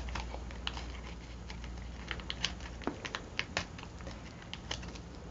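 Hands pressing and smoothing a glued paper cut-out onto a journal page, giving irregular light clicks, taps and rustles of paper.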